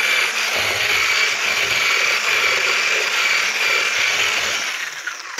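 Electric hand blender running steadily, whisking a thick mixture of eggs, sugar, butter and honey in a stainless steel saucepan. Its motor whines, then winds down and stops about five seconds in.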